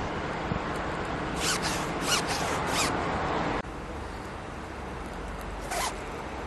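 Hoodie zips being run up and down by hand: a run of four quick zip strokes starting about a second and a half in, then a single stroke near the end. Steady outdoor background noise drops suddenly just past halfway.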